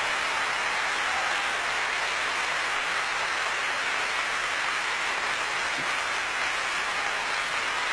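Audience applauding: dense, steady clapping at an even level.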